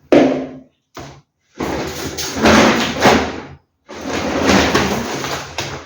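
Groceries being handled and unpacked: a sharp knock at the start, then two long spells of rustling and scraping noise, typical of plastic produce bags being handled.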